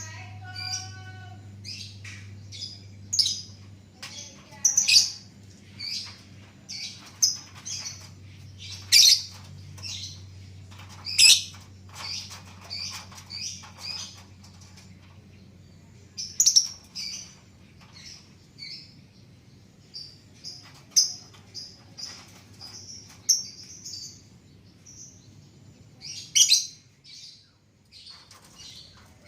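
A colony of lovebirds chirping: many short, high-pitched chirps in quick succession, with a few louder calls scattered through.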